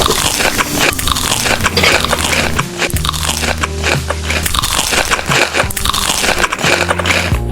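Close-miked biting and chewing of crunchy food: dense, irregular crunches throughout, over background music with steady low notes.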